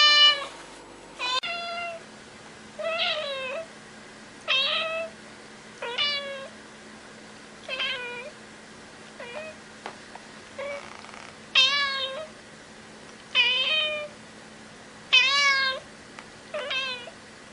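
A cat meowing over and over, a short call about every second and a half.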